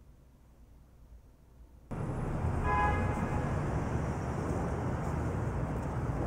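Near silence for about two seconds, then city street ambience cuts in suddenly: a steady traffic rumble and hiss, with a brief higher tone about half a second after it starts.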